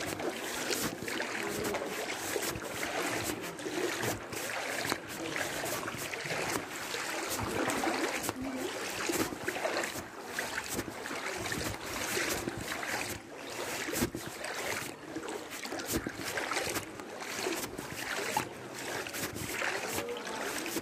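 Floodwater sloshing and splashing, with irregular knocks and wind buffeting the microphone.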